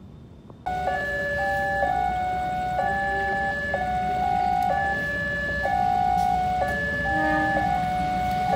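A looping electronic chime of steady beeping tones, a few notes switching in a pattern that repeats about once a second, starting suddenly about a second in.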